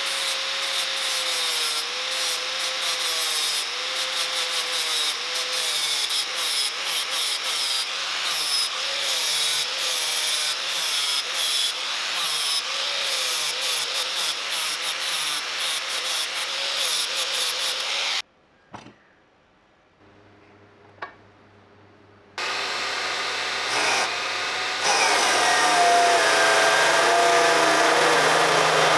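Angle grinder working metal, its motor note wavering as the load changes. It cuts off about 18 seconds in, leaving a few faint clicks, then a power tool starts running again about 22 seconds in and gets louder a few seconds later.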